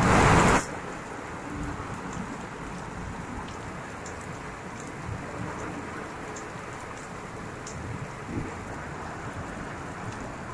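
Heavy rain falling steadily on a clay-tiled roof and wet ground, a dense even hiss. It opens with a loud half-second burst of noise.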